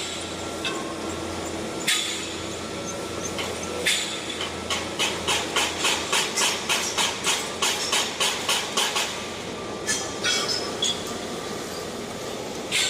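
Hammering on a construction site: a few single blows about two seconds apart, then a fast run of about four blows a second for about five seconds, then a few more spaced blows, over a steady background of site noise.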